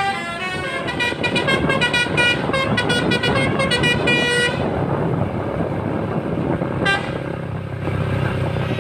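NPM bus's Basuri telolet horn, a multi-tone musical air horn, playing a fast pulsing tune that stops about four and a half seconds in. After that the bus's engine and road noise carry on, with one short click about seven seconds in.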